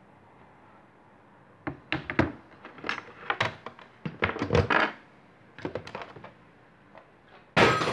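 An old red rotary telephone being handled roughly on a wooden table. Its body and handset give a run of knocks and clatters through the middle. Near the end one hard knock sets its bell ringing.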